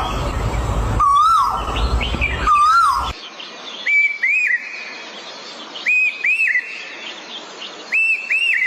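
A bird calling with clear, arched whistled notes: three lower calls in the first three seconds over a low rumble, then after an abrupt change three paired higher calls about two seconds apart.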